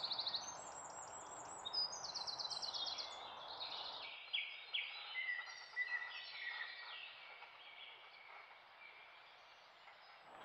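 Woodland birdsong from several birds: quick, rapidly repeated high trills over a steady hiss. About four seconds in the hiss stops and lower whistled and sliding notes take over, growing fainter toward the end.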